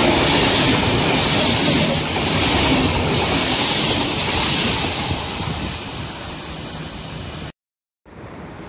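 Deutsche Bahn Intercity coaches rushing past at speed, a loud steady noise of wheels on rail and air that fades as the last coach goes by. It cuts off suddenly near the end, followed by faint wind on the microphone.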